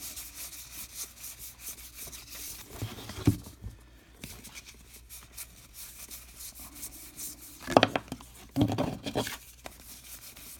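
Baseball cards being thumbed through one by one, the cardstock sliding and flicking against the rest of the stack in a fast, faint rustle. There are a couple of louder handling bumps, one about three seconds in and a stronger cluster near the end.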